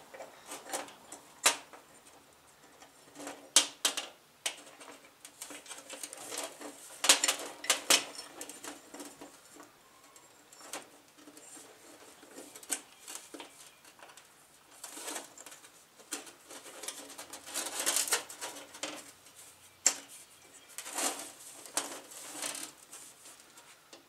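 Small parts of a Suzuki Samurai exterior door handle and its metal bracket clicking, tapping and scraping as the springs are fitted by hand. The clicks are irregular, with a few short scrapes.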